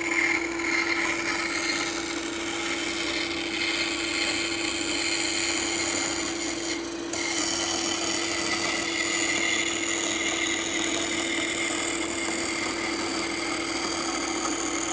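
Bandsaw with a 1/4-inch blade running and cutting along a tight curve in a wooden board: a steady motor hum under continuous sawing noise.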